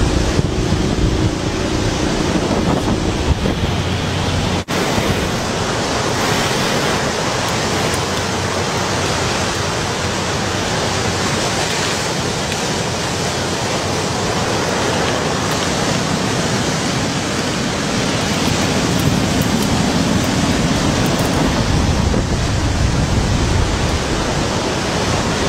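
Steady, loud rushing noise with no distinct events, briefly cut off about four and a half seconds in.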